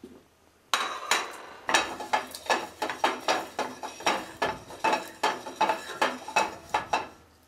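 Metal cookware and utensils clinking in a quick, even run of strikes, about three a second, starting about a second in.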